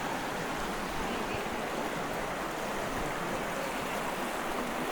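Steady rush of running water from a river or stream.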